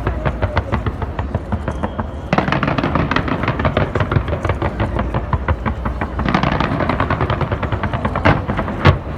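Fireworks display going off in a rapid, dense crackle of pops, with two heavier bangs near the end.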